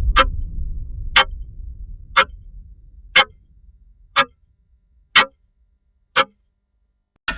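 Clock ticking evenly, once a second, over a low rumble that fades away during the first few seconds. Just before the end a faster ticking with pitched tones starts.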